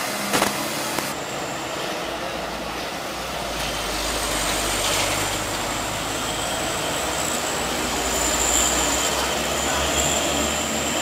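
Heavy diesel trucks running as they round a steep hairpin bend, a steady rumble that grows louder in the second half. A high-pitched squeal comes in over it, and there is a short sharp knock about half a second in.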